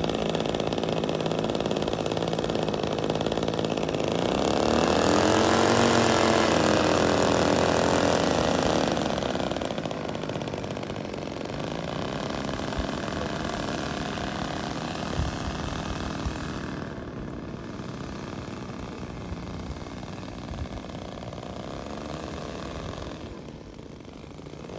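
Small gasoline engines of a radio-controlled Cessna 337 push-pull twin model running as it taxis. The engines rev up about four seconds in, rising and then falling back in pitch by about nine seconds, then run on quieter as the model moves farther off.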